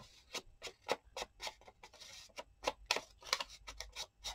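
Irregular small clicks and taps, a few a second, with a short paper rustle about two seconds in, from handling paper and craft supplies on a work surface.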